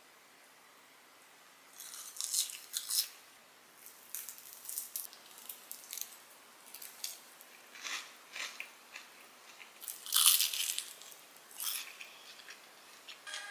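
Close crunching and chewing: bites of crisp lettuce salad, then bites of a crispy, chewy cheese-sausage bread, in irregular crackly bursts, the loudest about ten seconds in.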